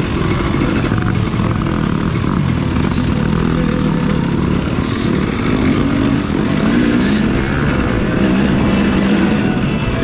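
Dirt bike engine running steadily under way on a trail ride.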